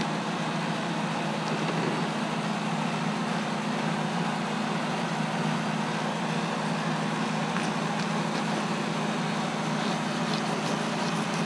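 A steady machine hum, an even drone that does not change, with a couple of faint clicks about eight and ten seconds in.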